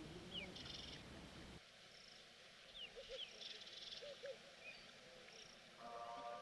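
Faint outdoor ambience with birds calling in scattered short chirps, and a low rumble that stops about a second and a half in.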